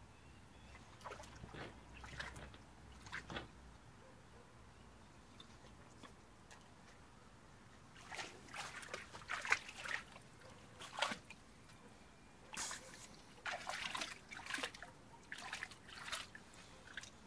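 A boxer dog wading in a shallow inflatable paddling pool, its legs sloshing and splashing the water in irregular bursts, busiest in the second half.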